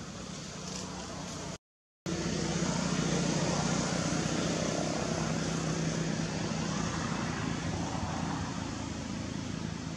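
Steady drone of a motor vehicle engine running nearby. It cuts out to silence for about half a second just under two seconds in, then comes back louder.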